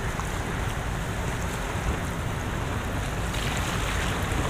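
Wind buffeting the microphone over the steady wash of sea water against a harbour pier, with a brighter hiss coming in about three seconds in.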